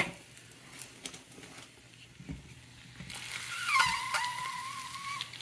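Slices of Spam sizzling in a frying pan, quiet at first and then louder from a little past halfway. Over the louder sizzle a high, steady whistling tone is held for about a second and a half near the end.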